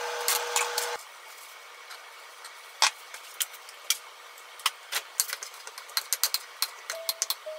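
Frying hiss and a steady hum from the pan on the stove, which cut off about a second in. Then scattered light clicks and taps of a plastic rice paddle and a container against a glass bowl as edamame is poured into rice and mixed. A few soft music notes come in near the end.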